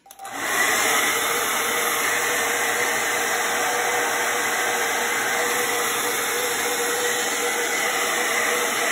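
Handheld hair dryer switching on, reaching full speed within about half a second, then blowing steadily with a faint steady hum from its motor.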